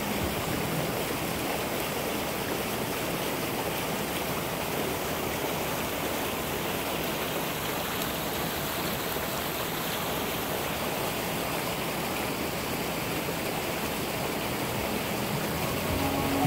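Rain-swollen creek rushing fast over rocks and through its channel, a steady, even sound of flowing water.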